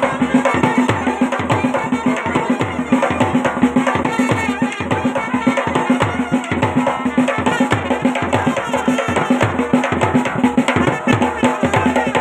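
Himachali folk band baja playing: drums beat a quick, steady rhythm over a held note.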